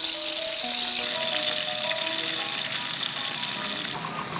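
Slices of breadfruit deep-frying in hot oil in a metal wok: a steady, even sizzle that drops away near the end.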